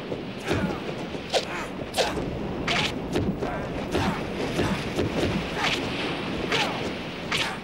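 Fight sound effects: a quick series of sharp punch and kick hits, about one every half second to second. Under them runs a steady wash of wind and sea.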